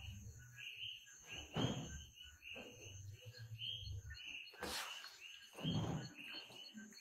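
Faint, steady run of short chirps, about three a second, from a chirping animal, broken by a few brief rustling noises.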